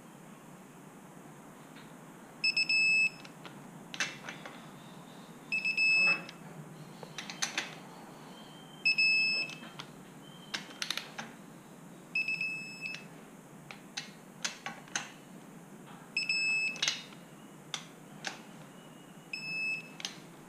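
Digital torque wrench beeping as each camshaft tower nut reaches the set torque of 25 N·m (18.5 lb·ft): six short, high beeps every three to four seconds, with light metallic clicks and clinks of the wrench and socket on the nuts between them.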